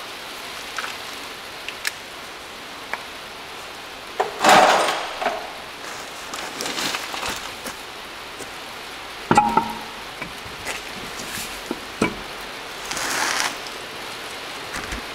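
Hands working on a car's alloy wheel as it is refitted: scattered light clicks and knocks, two longer scraping or rustling passages, and one sharp metallic clink with a brief ring about nine seconds in.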